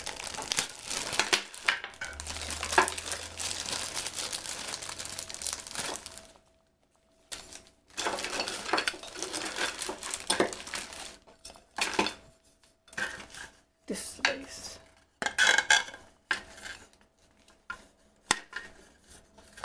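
A plastic bag crinkling as threaded plastic pylons are pulled out of it, then a short pause and scattered clicks and clatter as the hard plastic parts of a turtle basking pier are handled and knocked together.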